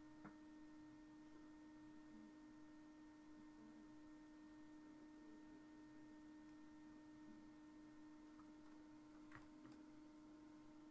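Near silence: a steady low electrical hum, with two faint clicks, one just after the start and one near the end.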